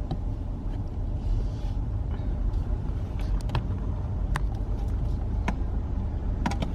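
Car running at low speed, heard from inside the cabin: a steady low rumble with scattered light clicks and knocks.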